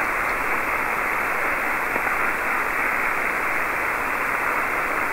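Steady hiss of band noise from an amateur radio receiver on the 40-metre phone band with no station transmitting, cut off sharply above about 3 kHz by the single-sideband receive filter.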